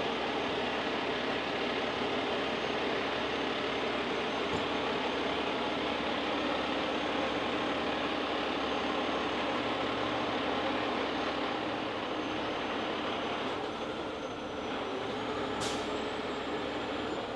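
A 50-ton Miller rotator tow truck's diesel engine running steadily with the hydraulics working as the winch lines are raised. A single sharp metal clank comes near the end.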